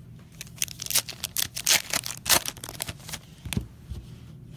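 Foil wrapper of a trading card pack being torn open and crumpled: a quick run of crackles and rips, loudest a little past the middle.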